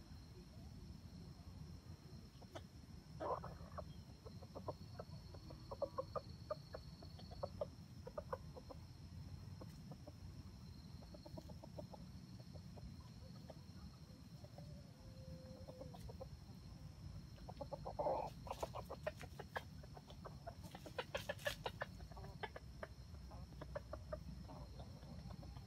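Wild red junglefowl clucking in faint runs of short, quick calls, with two louder, busier runs about two-thirds of the way through. A steady high whine sits behind them.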